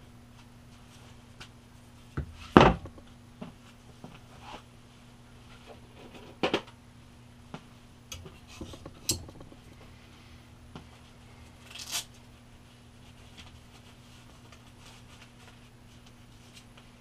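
Metal parts and tools being handled on a workbench, with scattered clinks and knocks; the loudest clank is about two and a half seconds in. A faint steady hum runs underneath.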